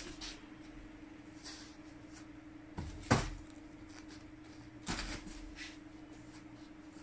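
Thuds of a child's body landing on a foam play mat during gymnastics moves: a sharp thud about three seconds in and a softer one nearly two seconds later, over a steady low hum.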